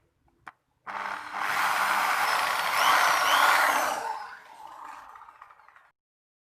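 A small electric motor running hard for about five seconds. It starts suddenly about a second in, then weakens over its last two seconds before cutting off.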